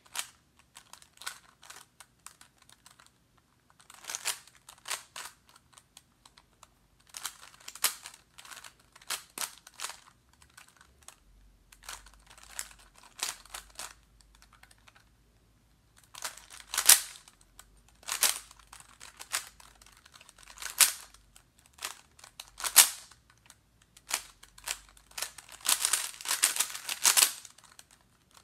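Plastic 3x3 puzzle cube being turned quickly by hand: runs of rapid clacking and clicking as the layers snap round, broken by short pauses. The runs get busier and louder in the second half.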